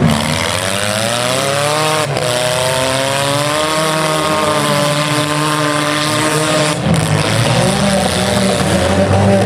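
Engines of several small stock cars revving and running at once, their pitch rising and falling.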